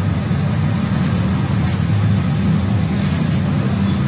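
Steady low rumble of motor-vehicle engine noise.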